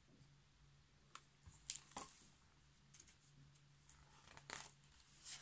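Near silence with a few brief, faint rustles and taps as a large picture book's paper pages are handled and turned.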